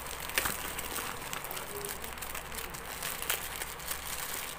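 Clear packing tape being peeled and plastic wrapping crinkling as a parcel is opened by hand: irregular crackles, with one sharper snap about a third of a second in.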